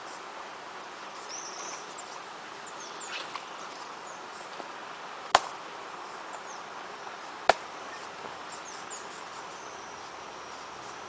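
Steady outdoor ambience with faint, high bird chirps, broken twice by a sharp click about two seconds apart; the clicks are the loudest sounds.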